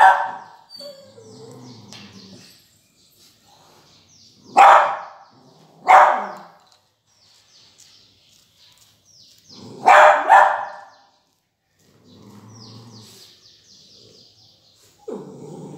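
Beagle barking: loud single barks a few seconds apart, with two in quick succession about ten seconds in. Faint high chirping runs between the barks.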